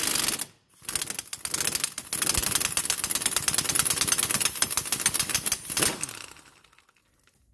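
Pneumatic impact wrench in reverse, hammering rapidly as it spins an outer tie rod end off the inner tie rod. There is a short break under a second in, then it runs again and tails off around six seconds in as the tie rod end comes free.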